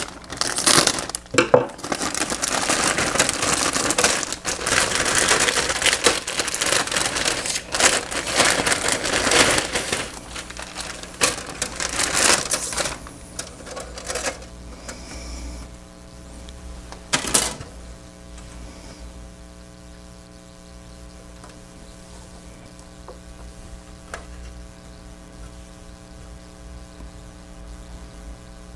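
Clear plastic bag crinkling and rustling as a plastic model-kit sprue is slid out of it, loud for roughly the first half. After that a quieter steady electrical hum remains, with one brief rustle a few seconds later.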